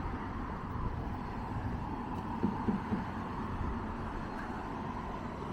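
Steady low rumble of motor vehicles: engine and road-traffic noise.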